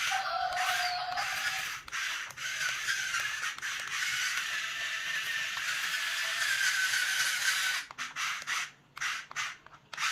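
Radio-controlled toy excavator's small electric motors and plastic gearboxes whining as it works. About eight seconds in the whine stops, and a few short stop-start bursts follow.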